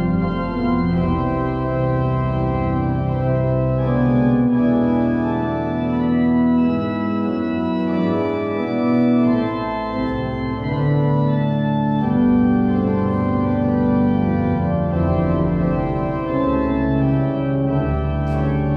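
Church organ playing the postlude at the close of the service: slow, held chords that change every second or two.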